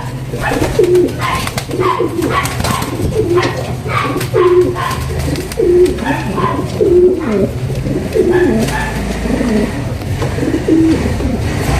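Pigeons cooing, many short overlapping coos following one another several times a second, over a steady low hum.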